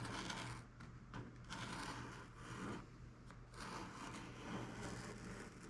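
Small X-Acto razor saw cutting through balsa sheet in slow back-and-forth strokes, a rasping scrape about once a second.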